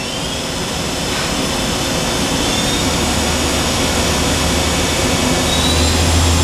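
Okuma MA-50HB horizontal machining center's CAT-50 spindle running at speed, humming steadily. The sound slowly grows louder as the speed override is raised above the programmed 4500 RPM, and a low hum comes in about halfway and strengthens near the end.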